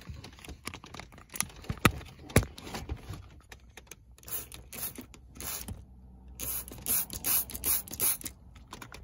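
Hand trigger spray bottle spritzing textile cleaner onto a cloth car seat: a few short hissing sprays about four seconds in, then a quicker run of about six sprays near the end. A few sharp clicks come about two seconds in.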